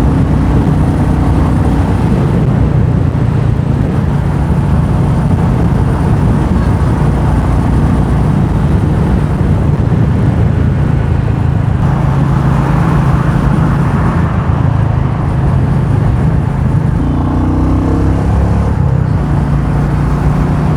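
Royal Enfield Meteor 350's single-cylinder engine running steadily while riding, under steady wind and road rush. The engine note changes about 17 seconds in.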